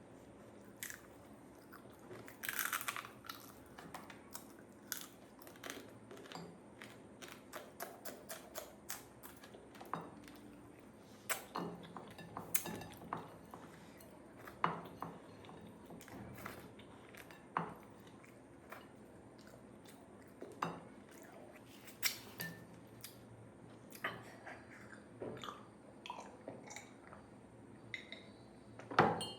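A person chewing food up close, with many short wet clicks and crunches and a louder crunch about three seconds in.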